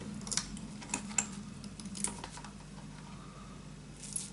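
A handful of light, sharp clicks and taps of small metal parts being handled with pliers: the nuts and washers coming off the BOSS RC-505 looper's jack sockets.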